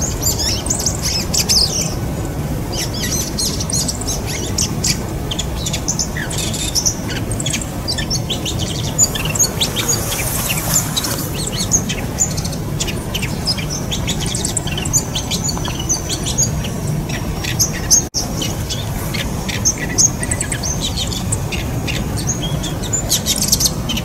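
Male bull-headed shrike singing a courtship display song to a female: a long run of short, varied chirps and squeaky notes, a quiet medley that takes in mimicry of an Oriental reed warbler near the end.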